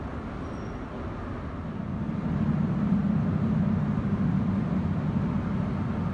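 Steady low rumble of subway-station ambience with no distinct events, growing louder about two seconds in.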